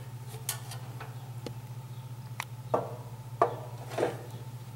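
Several light knocks and clinks of an old rusty metal pail being turned over in the hands and set down on a table, over a steady low hum.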